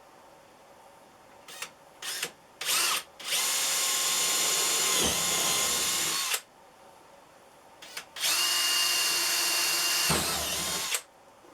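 Electric drill boring holes through the bottom of a storage box. A few short trigger blips come first, then two steady runs of about three seconds each. In each run the motor's whine dips briefly as the bit bites.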